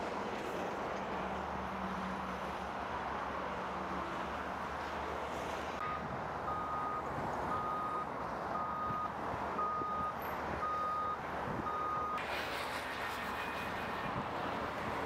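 A vehicle's reversing alarm beeping seven times at one steady pitch, about once a second, over steady background noise. The beeping stops after about six seconds and a higher hiss comes up.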